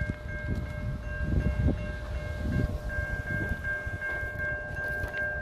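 Railway level-crossing warning bell ringing, a steady high tone, over an uneven low rumble.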